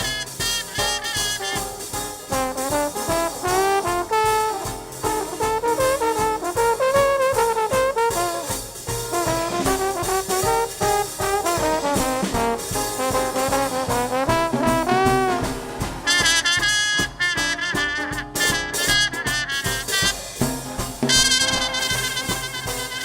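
Live traditional jazz band playing an instrumental chorus, brass horns leading over a steady beat. A higher horn line takes over about two-thirds of the way through.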